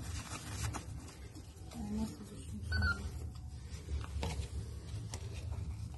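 Kitten trapped in a plastic rain-water downpipe mewing faintly, with a couple of short mews about two and three seconds in, over a steady low hum and a few light clicks.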